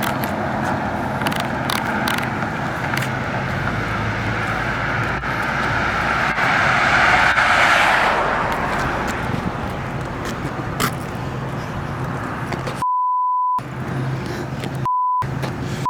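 Steady street traffic noise, with a vehicle passing close by that swells and fades about seven seconds in. Near the end come three short, even beeps, the rest of the sound muted around them: a censor bleep.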